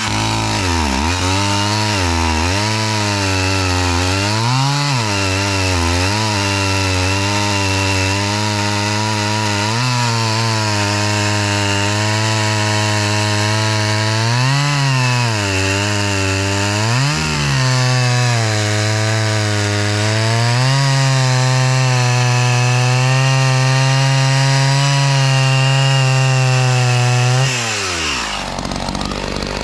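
Two-stroke chainsaw with a 20-inch bar and safety chain cutting through large wood. The engine speed sags repeatedly under load and picks back up, a small saw working hard on a bar that is a lot for it, then drops to idle near the end as the cut finishes.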